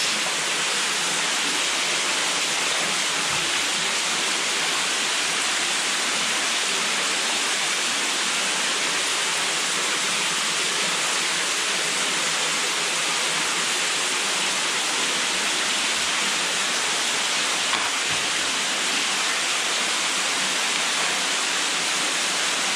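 Steady rushing of a small underground waterfall, water pouring over the cave's rock.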